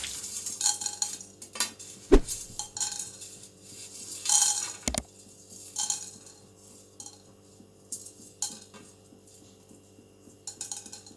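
A spoon scraping and tapping against a pan while stirring coriander seeds and black pepper as they dry-roast, in irregular strokes over a faint steady hum.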